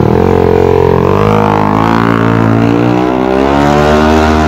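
Yamaha NMAX v1 scooter's 230cc single-cylinder engine with a JVT super head, pulling away with a heavy rider aboard. Its pitch rises quickly over the first second, dips briefly, then keeps climbing steadily as it accelerates.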